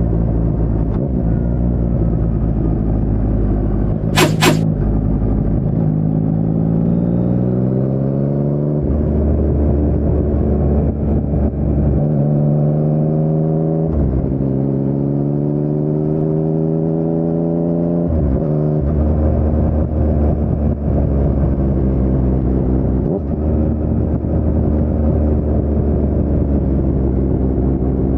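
2019 Yamaha MT-09's three-cylinder engine through an Akrapovic carbon full-system exhaust with no dB killer, pulling hard on the throttle. The pitch climbs and then drops abruptly several times, as at gear changes. A pair of sharp cracks comes about four seconds in.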